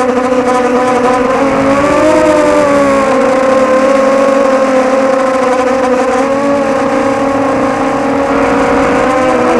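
Mini H-frame quadcopter's motors and propellers whining steadily in flight, several close pitches at once that waver and shift about two seconds in and again near the end.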